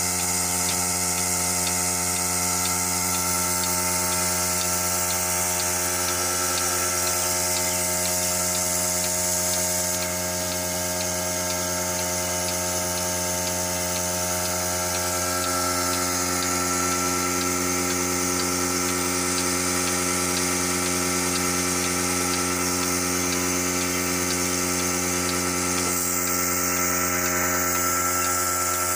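Electric milking machine running steadily through a milking, its vacuum pump giving an even, unchanging hum.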